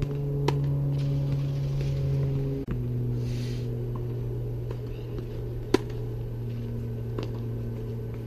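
Tennis rally: a few sharp pops of the ball off racket strings and the hard court, over a steady low hum that drops slightly in pitch about a third of the way in.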